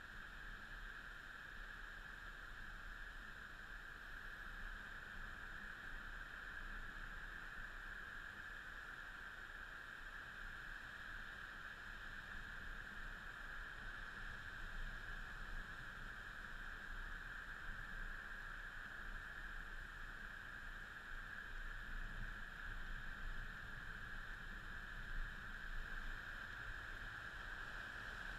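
Faint steady hiss with a high, even hum and no distinct sound events.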